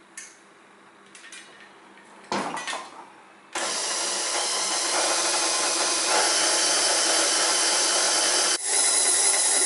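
KitchenAid Classic tilt-head stand mixer: a clunk as the head is lowered about two seconds in, then the motor starts about a second later and runs steadily with a whine, the dough hook kneading wholemeal bread dough.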